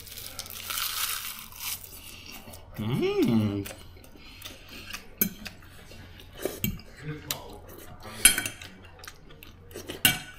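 Metal fork clinking and scraping on a ceramic plate while picking up food, with several sharp clinks in the second half. A short hummed sound about three seconds in.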